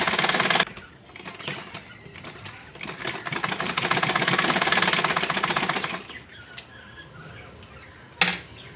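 Electric-motor-driven Peerless sewing machine stitching in fast, even needle strokes. A short run ends just under a second in, and a longer run of about three seconds follows from about 3 s. A single sharp click comes near the end.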